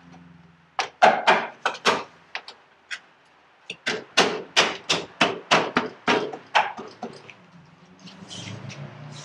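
A series of sharp knocks and taps on the dash of a Toyota FJ40 Land Cruiser as its trim pads are pressed onto their pins. A few irregular knocks come about a second in, then a steady run of about three a second between four and seven seconds in.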